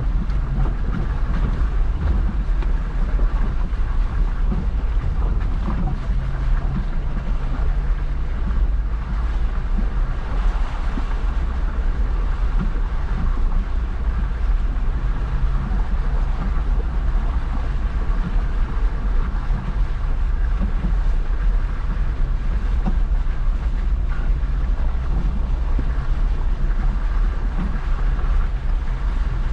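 Jeep engine running steadily under way at low speed, a constant low rumble with some wind on the microphone.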